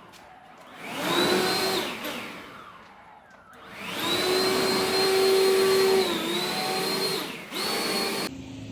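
A vacuum cleaner running in three swells, a short one, a long one and a brief last one, its motor pitch dipping for a moment partway through the long one.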